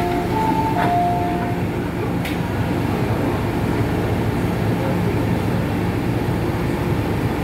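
MTR M-Train standing at a platform as its doors open: a two-note electronic door chime alternates high and low for about the first second and a half. After that the train's steady low hum carries on, with a faint click about two seconds in.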